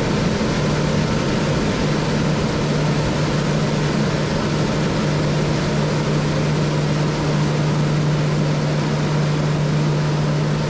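DN Solutions Puma TT2100 CNC lathe boring the inside of a spinning brass part with a boring bar: a steady low hum with a loud, even hiss over it.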